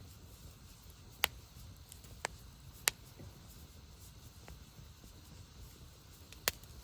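Wood campfire crackling: a few sharp, irregular pops from the burning wood over a low, steady rush of the flames.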